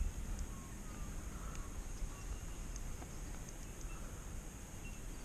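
Quiet outdoor background: a low rumble of wind on the microphone, a steady thin high hiss, and a few faint short chirps and ticks scattered through it.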